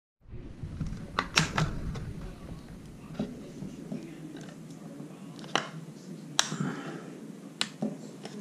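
Plastic top shell of a DJI Mavic drone being worked loose by hand from the body, with handling rustle and scattered sharp plastic clicks and snaps as the clips let go. Three clicks come close together a little after a second in, and single ones follow later.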